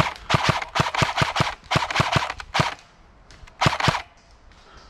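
Airsoft gun firing: a quick string of about a dozen sharp shots, several a second, then a short pause and two more shots a little past three and a half seconds in.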